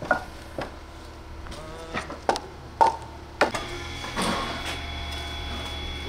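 Split firewood logs knocking and clacking against one another as they are handled and stacked, with about six sharp wooden knocks in the first three and a half seconds. A steady whine then comes in and holds.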